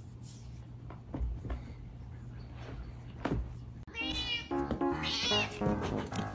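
Faint steady hum with a few soft knocks, then from about four seconds in a cat meowing over background music.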